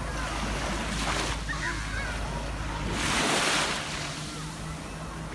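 Sea waves washing onto the shore, the surf hiss swelling and fading, with the biggest wave breaking about three seconds in.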